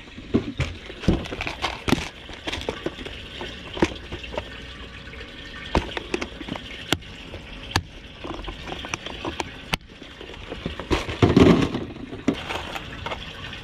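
Tackle being handled in a boat's storage hatch: scattered clicks and knocks of a plastic tackle box and gear, over a steady trickle of running water, with a louder knock about eleven seconds in.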